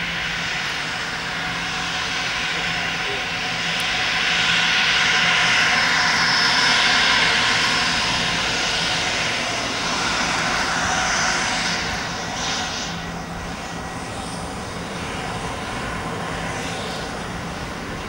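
Gulfstream G550 business jet's two Rolls-Royce BR710 turbofans during the landing rollout as the jet passes close by. A steady jet noise grows louder toward the middle, peaks for several seconds, then fades after about twelve seconds as the jet moves away.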